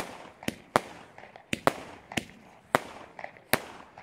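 A consumer firework battery (cake) firing: about eight sharp bangs at uneven spacing, each trailing off in an echo.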